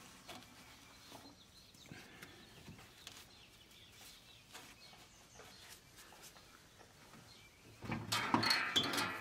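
Faint rustling and scratching as grass clippings are picked out of the mower's drive-belt and brake-stop area by a gloved hand. Near the end comes a louder, short animal call.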